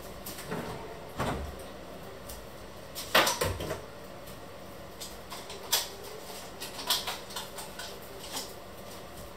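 Kitchen cupboard being opened and things inside handled: a string of separate knocks and clatters, the loudest a quick cluster about three seconds in.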